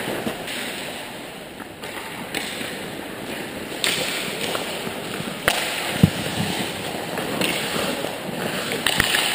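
Ice skates scraping and carving on rink ice, with a few sharp clacks of hockey sticks and puck about five and a half and six seconds in, and again near the end.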